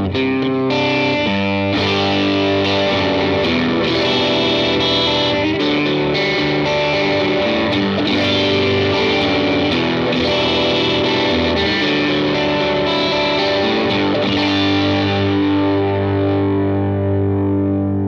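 Electric guitar played through a GizmoAudio Sawmill Jr. MOSFET overdrive pedal, with the bass cut switch set to bring the lows back in. Chords and single notes with light to medium overdrive, ending on a chord held and left to ring.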